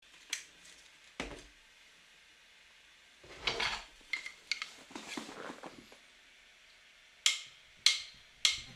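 Light clinks and taps on a small steel plate as a baby palm squirrel laps milk from it and grips the rim with its paws. The taps are scattered, with a few soft patches of lapping and handling in the middle and three sharper clicks near the end.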